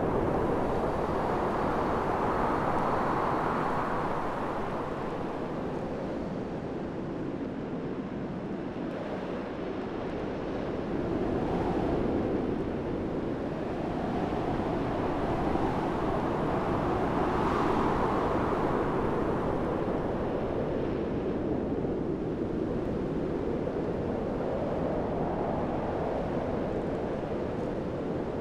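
Strong wind blowing in gusts, a rushing noise that swells and dies away again several times.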